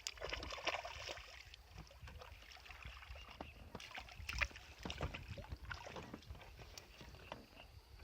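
Water splashing and sloshing around a small fishing boat, with scattered short knocks and clicks of things moving in the boat.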